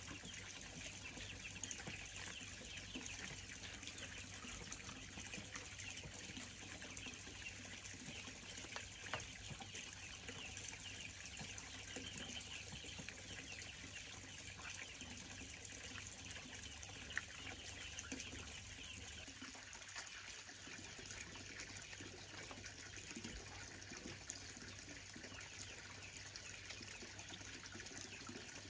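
Water trickling faintly and steadily, with small splashes and clicks throughout.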